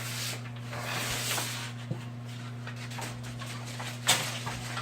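Drywall tape being rubbed and smoothed into place on a ceiling joint: soft scraping and rubbing over a steady low hum, with a sharp knock about four seconds in.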